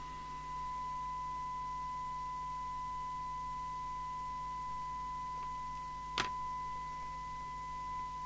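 Steady 1 kHz test tone, the demodulated audio of a test-set signal received by the CB radio during a receiver sensitivity check. One sharp click comes about six seconds in.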